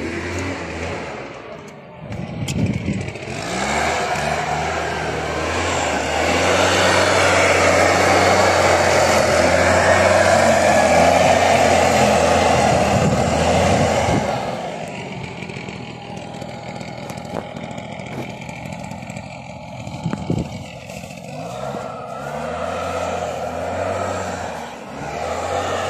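Small petrol engine of lawn-care equipment running, its pitch rising and falling as the throttle is worked. A loud, steady rushing noise covers it for about ten seconds in the middle.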